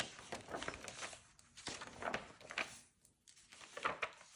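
Pages of a hardcover picture book being turned and pressed flat by hand: faint paper rustling and brushing in several short bursts.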